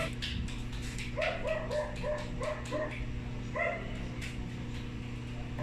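A dog barking repeatedly: a bark at the start, a quick run of about six barks between one and three seconds in, then another bark near four seconds.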